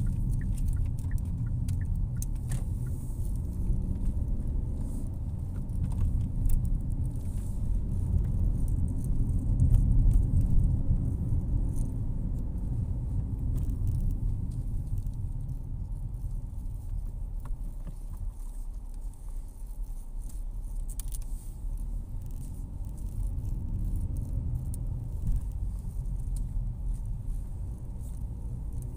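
Car engine and tyre noise heard from inside the cabin: a steady low rumble that swells briefly about ten seconds in, with faint light ticks and rattles over it.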